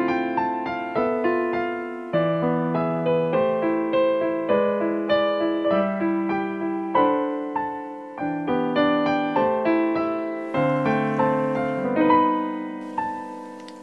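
Gentle solo piano background music: a slow melody of single notes and soft chords, each struck and left to fade.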